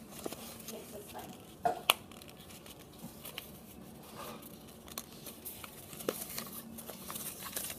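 A sheet of paper being folded and creased by hand: scattered light rustles and sharp crinkles, loudest a little under two seconds in.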